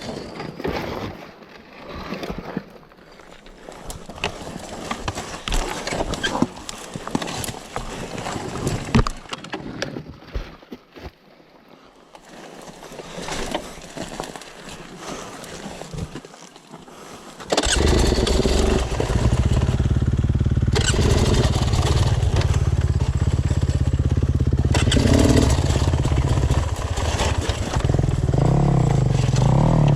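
Irregular scrapes and knocks, then a little over halfway through a dirt bike engine starts abruptly and keeps running steadily.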